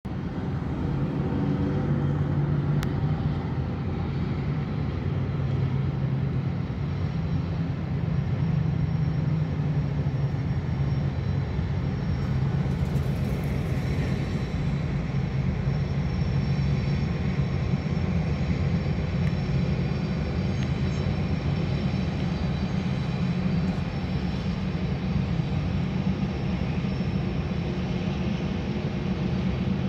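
Steady low diesel drone of Union Pacific diesel-electric locomotives working a freight train across a trestle, with traffic noise underneath.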